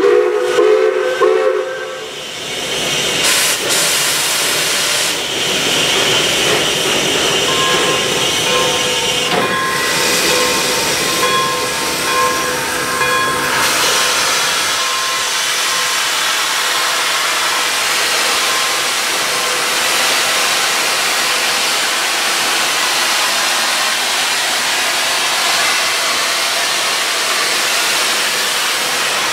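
Pere Marquette 1225, a 2-8-4 Berkshire steam locomotive, hissing loudly as it vents steam. The hiss grows denser and heavier about halfway through as a large steam cloud blows out at the front of the engine.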